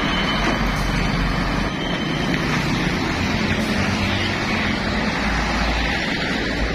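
Heavy trucks loaded with concrete poles driving past, a steady low diesel engine rumble mixed with tyre noise on the road. The low rumble grows stronger near the end.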